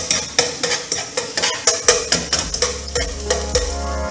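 A metal utensil clicking and scraping against a small frying pan, about three or four strokes a second, as chopped shallot is stirred in olive oil, with the oil sizzling underneath.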